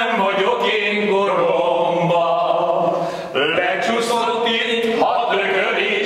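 Men singing a song together, their voices holding long notes.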